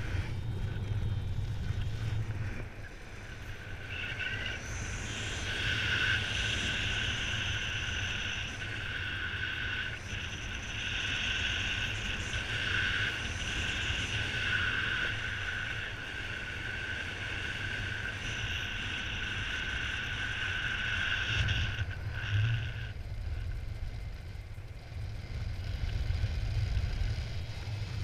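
Airflow rushing and buffeting over the camera's microphone during paraglider flight, a steady low rumble. From about four seconds in to past the twentieth second, a steady high-pitched tone sounds over the wind, then stops.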